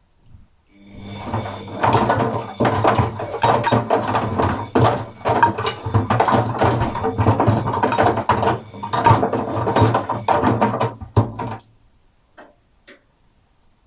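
Washing machine drum turning through a wash cycle, with paint rollers and brushes inside: a steady motor hum under sloshing and many knocks. It starts about a second in and stops about 12 seconds in, the pause between drum turns.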